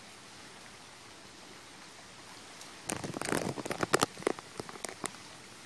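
A fishing lift net (yok yo) is hauled up out of a flooded pond on a long bamboo pole. About three seconds in, water starts splashing and pouring off the rising net in a dense, irregular run of splashes and drips, which thins out towards the end. Before that there is only a steady soft hiss.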